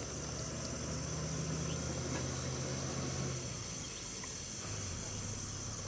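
Steady high drone of insects, with a low hum underneath that drops away about three and a half seconds in.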